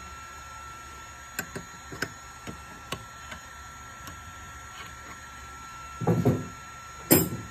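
Metal wrenches clicking against the CNC spindle's collet nut as it is loosened to take out the end mill, with two louder knocks about six and seven seconds in. A faint steady high tone runs underneath.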